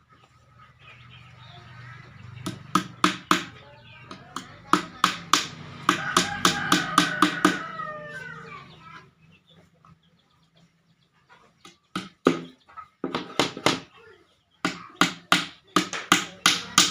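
Bursts of sharp hammer blows on wood, about three a second, as the shelf is put together. A rooster crows in the background midway.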